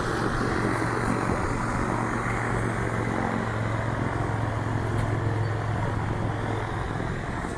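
An engine running steadily: a low hum under an even rushing noise. The hum stops about seven seconds in.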